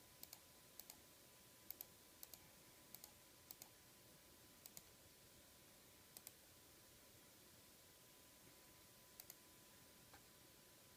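Computer mouse button clicking softly, each click a quick press-and-release pair. There are about nine of them at uneven gaps, most in the first five seconds and one more about nine seconds in, over a faint steady tone.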